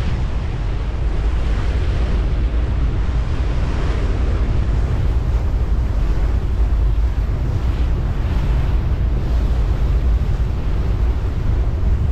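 Wind buffeting the microphone over a steady low rumble and the rush of water alongside a ferry underway, swelling and easing every second or two.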